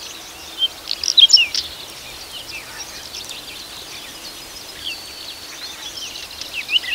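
Whinchat singing: short, quick phrases of high chirps and brief gliding whistles, the loudest phrase about a second in and another near the end, over faint meadow background.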